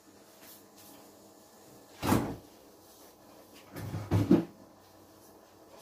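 A kitchen cupboard door being opened and shut: one sharp knock about two seconds in, then a short cluster of knocks and clatter near four seconds.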